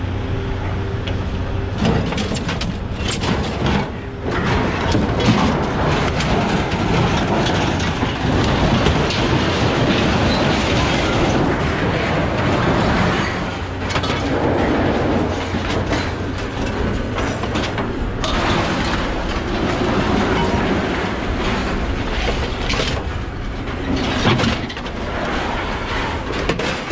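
Scrap metal clattering and scraping with many irregular knocks, as tangled aluminum and sheet steel are dragged out of a truck bed and thrown onto a scrap pile, over a steady low machine hum.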